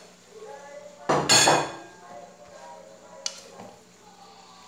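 Pot lid and metal utensils clattering against a large aluminium cooking pot: one loud clatter about a second in, then a single short clink a couple of seconds later.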